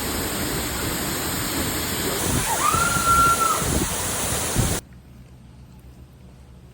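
Waterfall's rushing water, a loud steady roar, cutting off suddenly about five seconds in.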